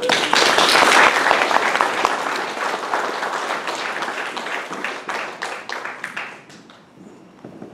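Audience applauding, loudest in the first second or two and dying away about six or seven seconds in.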